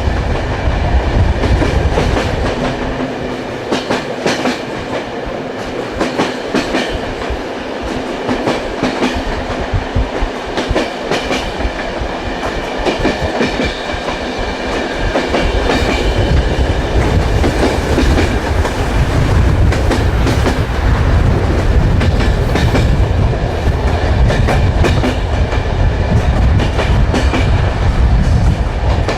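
Train wheels running on the rails: a steady rumble with the clickety-clack of wheels knocking over rail joints. The deep rumble fades for a stretch from about three seconds in and comes back strongly from about fifteen seconds.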